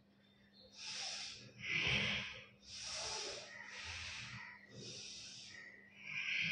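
A woman breathing hard in and out, six breaths about a second apart, paced with lifting and lowering both legs in a lying leg-raise exercise.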